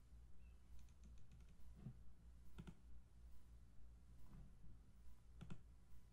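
Faint, scattered clicks of a computer mouse and keyboard over a steady low hum, with a quick run of clicks about a second in and the sharpest click near the end.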